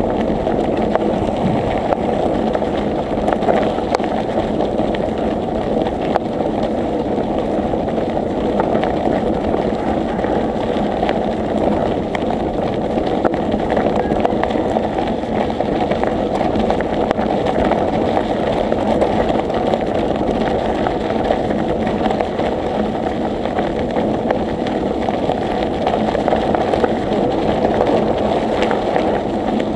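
Steady rushing noise of riding a bicycle: wind buffeting the microphone over the rumble of tyres on the road, with scattered small rattles.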